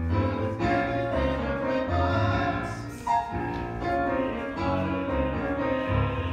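A musical theatre number: a group of voices singing over piano accompaniment.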